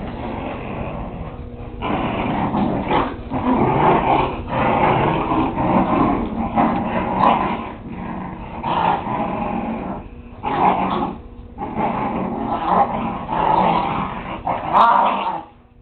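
Whippet puppies growling at each other in play, in long rough bouts broken by short pauses, cutting off suddenly near the end.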